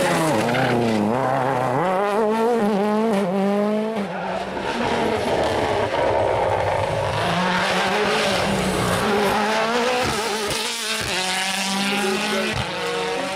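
World Rally Cars driven hard, a Ford Fiesta RS WRC and Mini John Cooper Works WRCs, their 1.6-litre turbocharged four-cylinder engines revving. The pitch falls as a car slows for a bend, then climbs again in quick steps as it changes up through the gears, and this happens again near the end.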